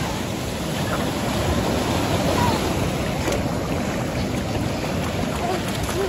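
Sea waves breaking and foamy surf washing up over the sand, a steady rushing noise.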